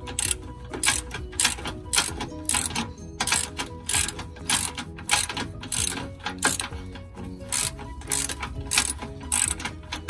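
Hand ratchet wrench clicking in short repeated runs, about two a second, as it backs out sway bar link bolts that have already been broken loose.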